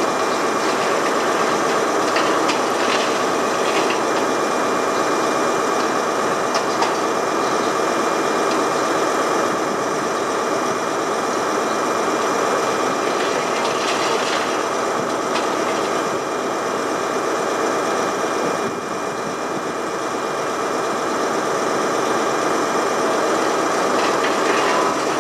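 Demolition excavator running steadily, its engine and hydraulics working a crusher attachment into a concrete car-park deck, with a few short cracks of breaking concrete.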